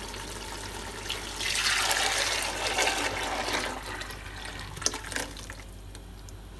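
A thin gram-flour and lassi mixture poured from a bowl into a pot of fried masala: a loud rushing pour that lasts about two seconds and then tapers off, followed by a couple of sharp clicks.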